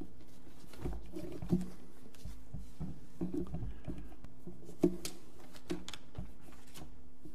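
Paper rustling and light knocks as sheets are handled on a wooden lectern close to its microphone, with two sharper knocks, one about a second and a half in and one near five seconds in, over a steady low hum.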